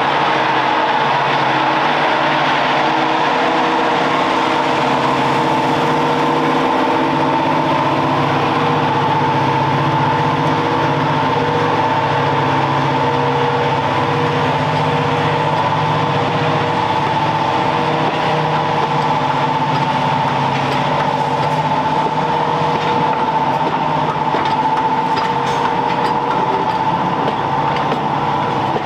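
Class 55 Deltic locomotive's twin Napier Deltic two-stroke diesel engines running as it hauls its train slowly past, a steady high whine over the engine note. In the second half, coach wheels click over the rail joints as the carriages roll by.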